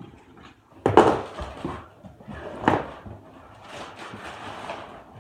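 Cardboard hoverboard box being cut open and handled: a loud thump about a second in, another knock a little under three seconds in, then scraping and rustling of cardboard.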